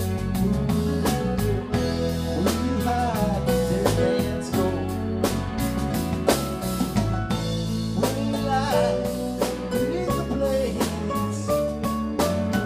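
Live band playing: electric guitars, bass guitar, keyboard and drum kit in a steady beat, with a melody line of bending notes over them.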